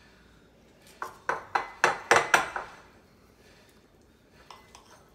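Metal knife and fork scraping and clinking against a ceramic bowl while cutting a piece of chicken: a quick run of about six strokes starting about a second in, then a few faint clicks near the end.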